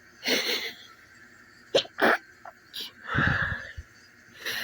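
A man sneezing in a fit: several short, sharp sneezes with heavy breaths between them, including two in quick succession about two seconds in.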